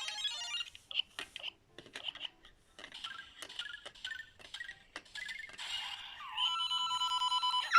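Electronic sound effects from a Lego Super Mario interactive figure's small speaker: scattered short bleeps and chirps, then a warbling trill of tones near the end.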